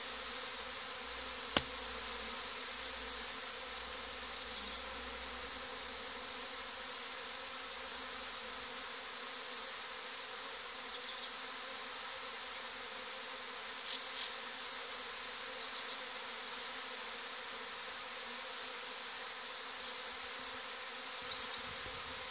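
A swarm of honeybees humming steadily as it crawls back into its hive, with one sharp click about a second and a half in.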